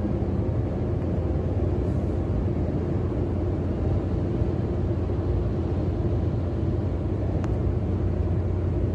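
Steady low rumble of a road vehicle travelling at speed, heard from inside it: continuous engine and tyre-on-road noise.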